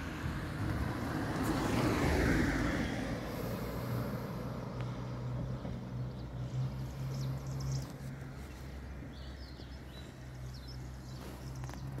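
Motor vehicle engine running with a steady low hum, rising to a rushing swell of noise about two seconds in. Faint short high chirps come and go in the second half.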